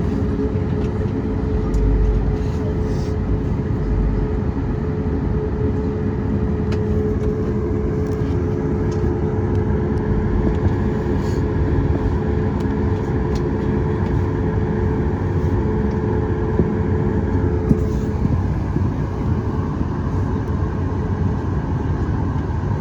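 Cabin noise of a Boeing 737 MAX 8 with its CFM LEAP-1B engines running: a loud, steady rumble heard from inside the passenger cabin. A steady hum runs under it and stops about 18 seconds in, and there are two low thuds about 2 and 4 seconds in.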